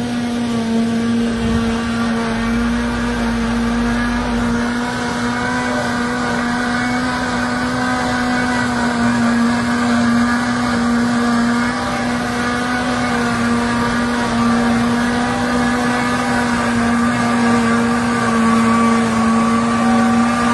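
Tractor-driven three-row corn silage harvester running steadily, its engine and cutting gear making a constant droning hum.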